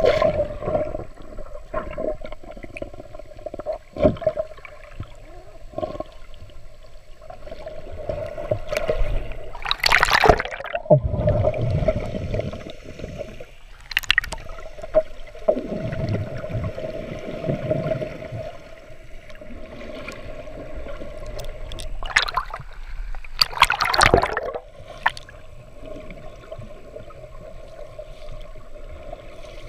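Muffled underwater water sound around a snorkeler's camera: sloshing and gurgling with a steady hum underneath, broken by several louder splashes.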